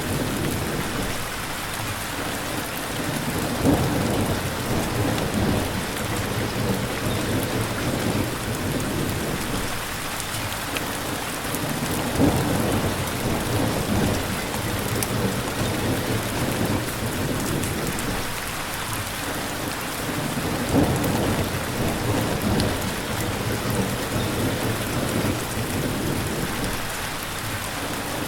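Steady, even rain falling, with low rumbles of thunder swelling and fading three times, about eight seconds apart.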